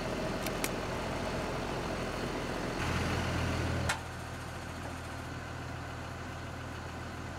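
Engine running steadily at idle, with a few light clicks in the first second and a louder low hum for about a second near the middle.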